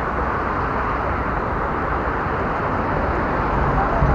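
City street traffic: cars driving past close by, a steady rush of engine and tyre noise picked up by an action camera's unhoused microphone.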